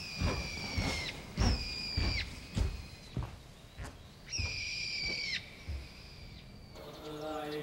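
Three long, high whistled notes, each held steady and dipping slightly as it ends, with a few low thuds in between. Near the end a sustained chord of low, steady tones comes in.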